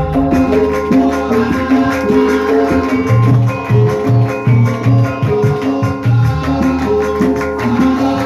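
Javanese gamelan ensemble playing, with the bonang's small kettle gongs struck in quick, ringing runs over lower sustained gong tones and drumming.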